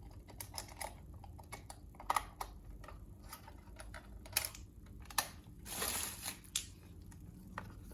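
Irregular light clicks and taps of small objects being handled, with a short scraping rustle about six seconds in.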